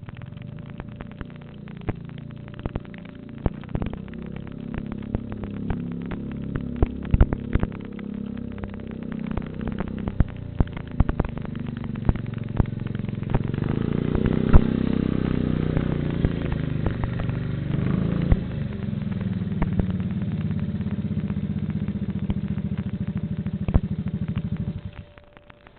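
Irregular sharp pops and clicks, scattered throughout. Under them a low motor hum builds up, holds steady, and cuts off abruptly near the end.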